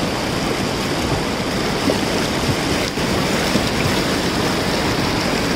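Fast mountain river rushing over boulders in rapids: a steady rush of white water.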